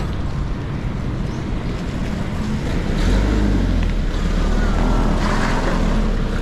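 Wind rushing over the microphone of a camera riding along on a bicycle, a steady low rumble that gets louder about halfway through.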